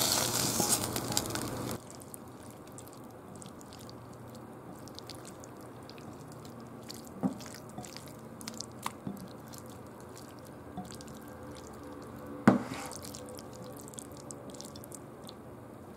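Hot pan-seared chicken breast pieces sizzling as they are tipped from the frying pan into a glass bowl of chopped garlic chive sauce, cut off abruptly about two seconds in. Then chopsticks stirring the chicken through the wet chive sauce: soft wet squelches and scattered clicks against the glass bowl, with one sharper click about three-quarters through.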